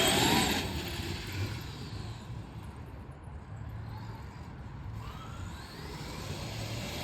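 Traxxas XRT RC monster truck's brushless electric motor whining up in pitch as it accelerates, then fading away. About five and a half seconds in, a second rising whine starts as it speeds up again.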